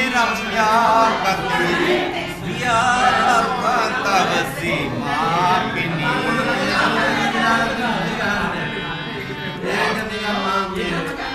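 A man singing a wavering, ornamented melody to a harmonium, which holds a steady low note beneath the voice.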